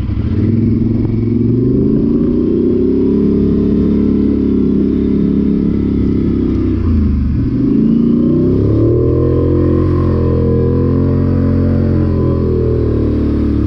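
Polaris Sportsman 850 ATV's twin-cylinder engine with an MBRP exhaust running under steady throttle while riding. The revs drop briefly about seven seconds in and climb back up.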